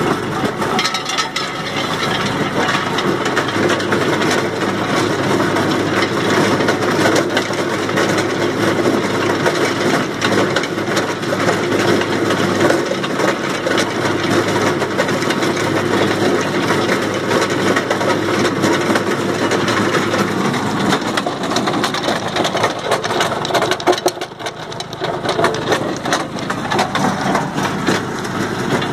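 In-field batch dehusker running: a steady machine hum under a dense crackle and rattle as nuts in their husks and dry leaves are churned by the rotating steel drum in its hopper. The sound eases briefly near the end, then picks up again.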